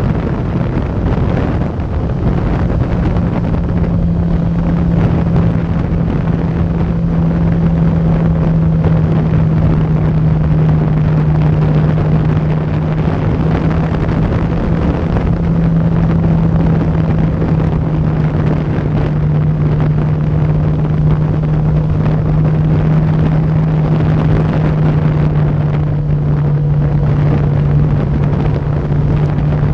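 Sport motorcycle engine holding a steady drone while cruising, with wind rushing over the microphone. The engine note drops a little near the end.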